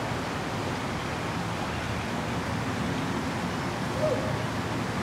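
Steady outdoor background noise with no single source. About four seconds in there is one brief squeak that rises and falls.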